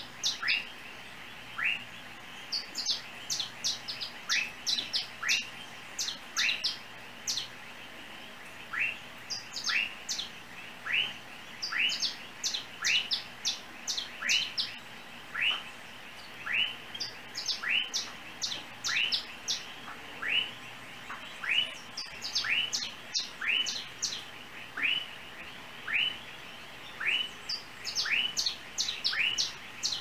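Small yellow birds chirping: short downward-slurred notes repeated at a steady pace, about one a second, mixed with quick clusters of higher, sharper chirps every few seconds.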